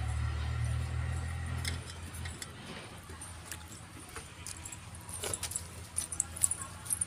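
Light clinking and jingling of hands, bangles and steel plates while eating rice and curry by hand, as scattered small clicks that grow more frequent near the end. A low hum fades out about two seconds in.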